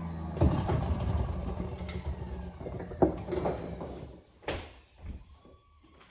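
Handling noise: a clatter with several sharp knocks over a low steady hum. The hum fades out about halfway, and the knocks grow sparser and quieter toward the end.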